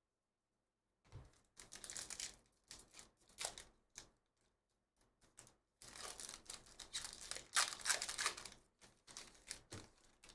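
Trading cards being slid and flipped against one another, then a foil trading-card pack wrapper being torn open and crinkled about six seconds in, with a few light clicks of cards being squared up near the end.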